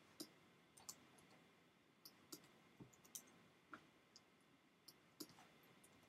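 A dozen or so faint, scattered clicks of a computer mouse and keyboard as size values are entered into a 3D program.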